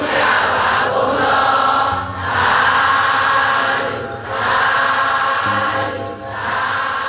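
A large congregation of Buddhist devotees chanting together in unison, many voices in phrases of about two seconds with short breaks between them.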